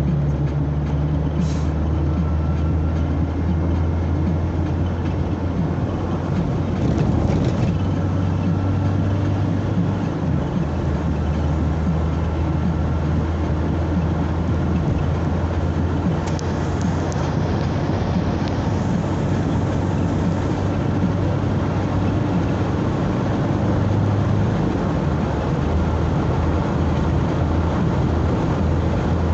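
A vehicle driving steadily along the road: a continuous low engine hum under even tyre and road noise.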